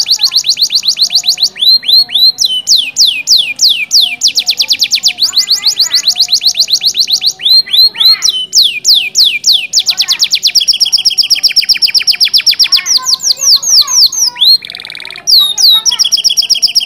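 Domestic canary singing loudly in fast rolling trills, each phrase a rapid string of repeated falling notes that switches to a new phrase every second or two, with a short buzzy note about three quarters of the way through.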